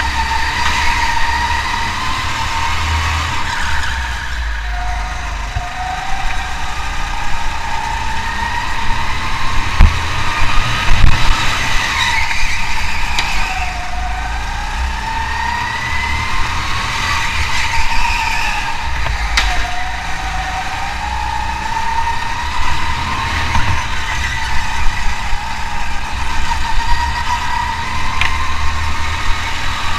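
Racing engine running hard, its pitch rising and falling continuously as it accelerates and slows, over a steady low rumble.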